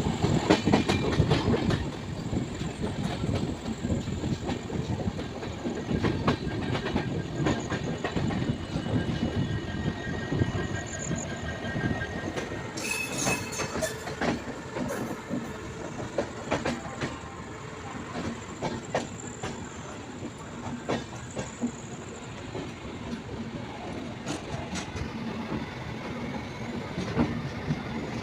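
Passenger train rolling along, heard from inside a coach: steady rumble and the clickety-clack of wheels over rail joints, louder for the first couple of seconds. A thin wheel squeal comes in midway.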